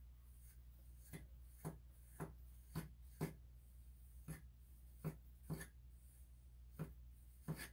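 Metal grooming comb pulled through a long-haired Chihuahua's coat in short, scratchy strokes, about one or two a second, working out the shedding undercoat.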